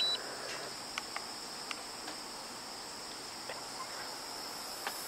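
Steady high-pitched trilling of crickets in the grass, with a few faint ticks. Right at the start, the last note of the DJI Phantom 3 remote controller's power-on beeps.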